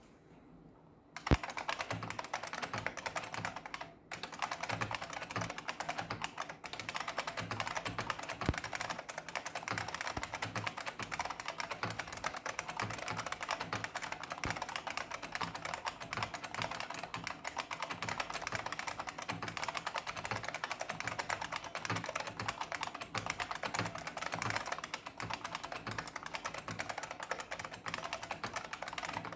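IBM Model M122 keyboard's buckling spring keys clacking in fast, continuous typing, starting about a second in with a short pause near four seconds.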